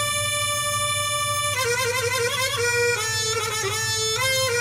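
Yamaha PSR-A5000 arranger keyboard playing its mijwiz voice, the sampled sound of an Arabic double-pipe reed instrument. One note is held for about a second and a half, then a run of quick ornamented notes follows.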